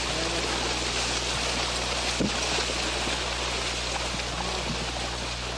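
A horse wading at speed through shallow marsh water: a steady rushing splash, over a low electrical hum from the old recording.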